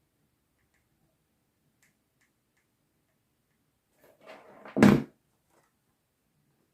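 A few faint ticks, then about four seconds in a brief rustling scrape that ends in one loud knock, like an object bumped or set down on a work surface.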